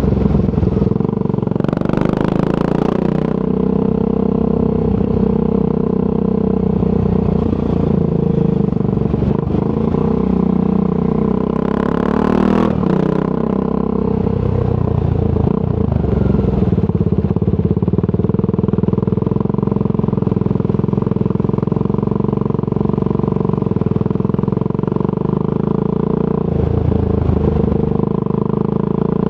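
Triumph Scrambler 400 X's single-cylinder engine through a Zard aftermarket exhaust, running steadily as the bike rides along, its pitch shifting with speed. There are two short rushes of hiss, about two and twelve seconds in, and the engine note dips briefly near the end.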